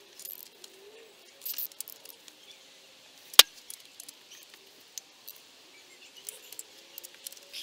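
Small metallic clinks and clicks of hand tools working the cylinder head bolts of a Toyota 3S-FE engine during the final 47 ft-lb torque pass, with one sharp, loud click about halfway through.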